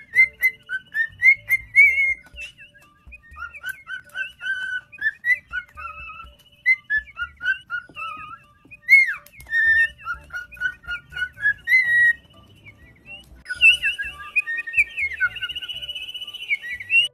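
Cockatiel whistling a warbling tune of short rising and falling notes with brief pauses. About 13 seconds in, it gives way to the denser chatter and whistling of a cage full of cockatiels.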